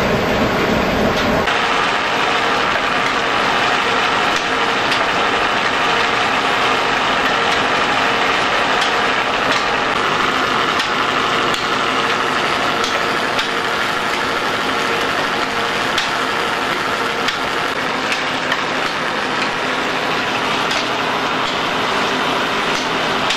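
Old belt-driven mill running: long flat drive belts and the shaft turning steadily, with faint ticks over a constant mechanical noise.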